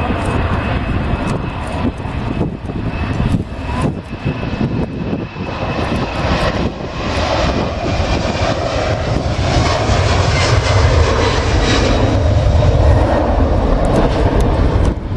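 Boeing 767-300ER's twin turbofan engines at takeoff thrust as the airliner rolls down the runway, lifts off and climbs away. It is a steady, heavy jet roar that grows louder through the second half.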